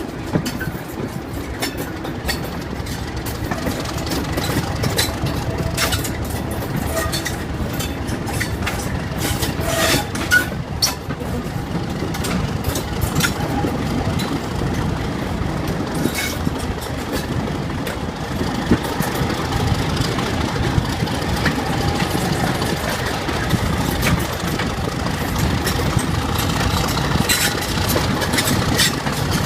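Class 31 diesel locomotive's English Electric V12 engine running, growing slowly louder, with scattered sharp clicks.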